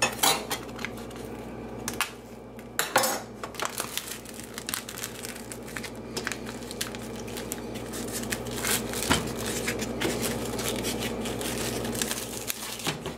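Plastic film on a supermarket meat tray crinkling and crackling as it is peeled away, with frequent sharp clicks and rustles from the plastic tray being handled. A faint steady low hum runs underneath.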